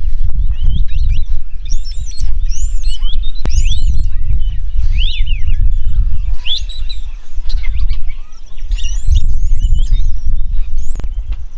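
A flock of wattled starlings calling in short, squeaky, overlapping chirps. Under them runs a loud, uneven low rumble that eases briefly past the middle.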